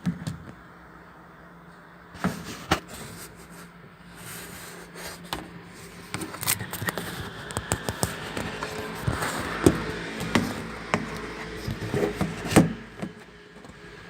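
Washing machine running: a steady motor hum with irregular knocks, clicks and scraping that grow busier from about six seconds in, with a sharp knock near the end.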